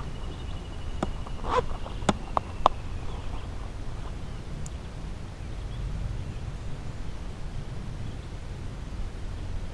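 Wind rumbling steadily on the microphone, with a few sharp clicks and knocks in the first three seconds from handling a caught fish and gear on a kayak.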